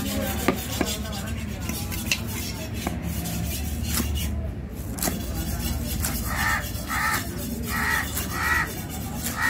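Heavy chopping knife striking down through a seer fish into a wooden block, sharp knocks about once a second. From a little past halfway a crow caws repeatedly, roughly every 0.7 s.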